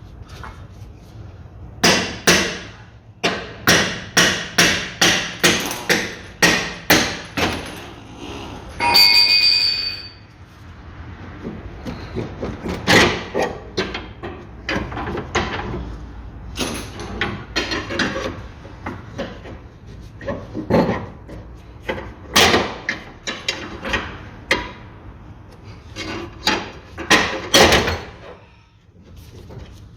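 Hammer blows on the steering knuckle around the suspension ball joint, to free the lower control arm: a quick run of about a dozen sharp strikes, a ringing metallic clang about nine seconds in, then slower, irregular knocks.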